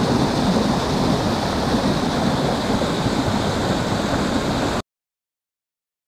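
Water gushing from an aqueduct outlet and splashing into the pool below, a steady rush that cuts off abruptly about five seconds in.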